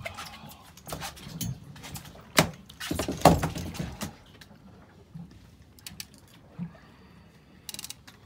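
Conventional fishing reel being cranked to bring in a hooked fish, its gears clicking and ratcheting. Knocks of handling sound among the clicks, the loudest two to three seconds in, and a quick run of clicks comes near the end.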